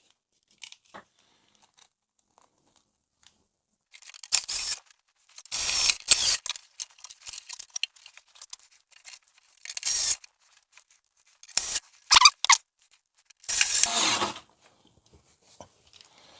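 Handling noises from reassembling a vintage hi-fi receiver: a series of short scraping and rubbing sounds, each under a second, with two sharp clicks about twelve seconds in.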